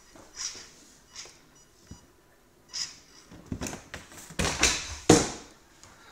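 Small 1/18-scale electric RC rock crawler driven in short spurts across cardboard boxes: brief whirs of its motor and gears, then louder scraping and knocking of its tyres and chassis on the cardboard, loudest about five seconds in.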